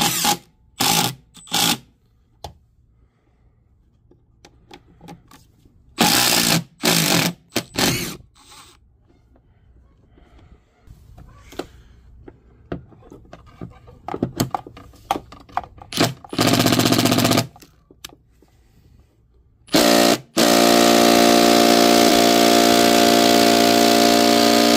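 Cordless Ryobi impact driver hammering on a rusted-in Torx T30 bolt in short bursts, then running steadily for about five seconds near the end as the bolt resists turning.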